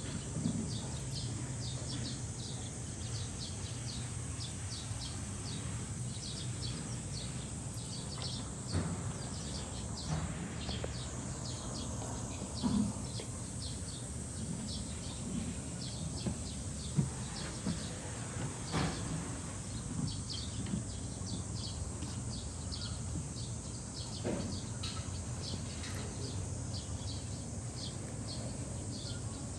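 Outdoor background hum with a long run of short, high chirps repeating a few times a second. A few sharp snaps and rustles come from leafy branches as a reticulated giraffe strips leaves from them, the loudest about 17 and 19 seconds in.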